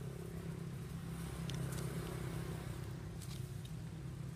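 Steady low drone of an engine running, with a few faint clicks about a second and a half in and again just after three seconds.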